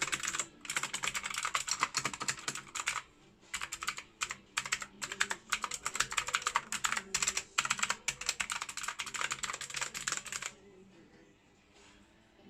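Typing on an AULA F2088 mechanical keyboard: rapid key clicks in runs broken by brief pauses, stopping near the end.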